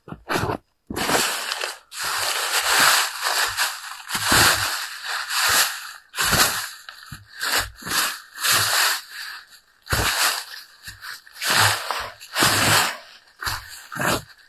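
Boots shuffling and kicking through dry fallen leaves, crunching and rustling in repeated bursts as leaves are swept off a concrete slab, with dull footfalls between.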